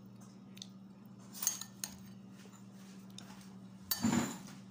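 Cutlery tapping and clinking against ceramic bowls during a meal: a few light clicks, then a louder clatter about four seconds in, over a steady low hum.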